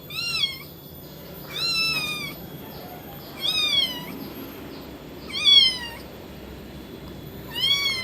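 Kitten mewing: five high-pitched mews, each rising then falling, about every two seconds.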